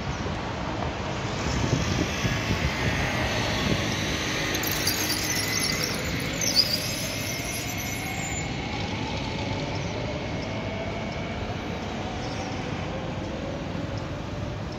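Electric train running past near the station, with a high thin whine in the first half and a lower tone that slowly rises and then falls in pitch.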